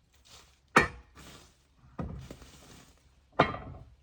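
Three sharp knocks, about one every second and a half, each with a short ringing tail, with quieter scraping between them.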